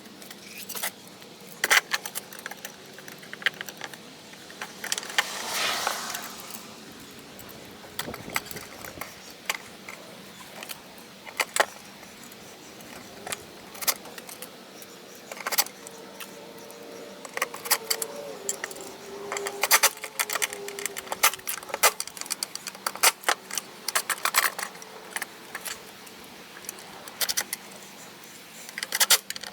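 Irregular metallic clicks and clinks as screws and mounting hardware are handled and driven into a wooden tabletop.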